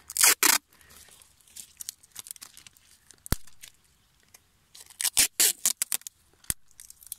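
Clear adhesive tape ripped off its roll, then scattered crinkles and crackles as the tape is wrapped around a hand-pollinated squash flower to seal it shut, with a second burst of ripping and crinkling about five seconds in.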